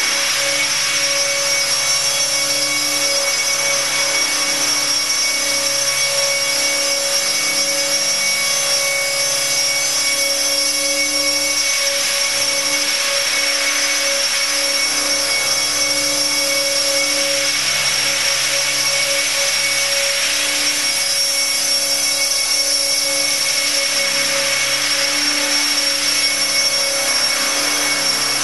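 Align T-Rex 600 electric RC helicopter in flight: a steady high whine from its electric motor and drivetrain over the rush of the main rotor, the rushing swelling and easing a few times as it manoeuvres.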